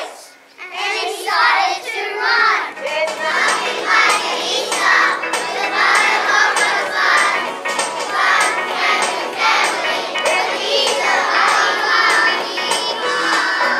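A group of young children singing together in unison over backing music with a steady beat.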